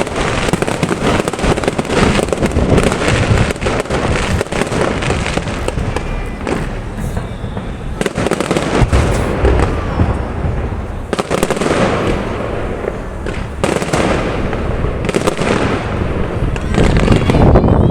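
Aerial fireworks display going off in rapid succession: a dense, continuous run of bangs and crackling, growing louder near the end.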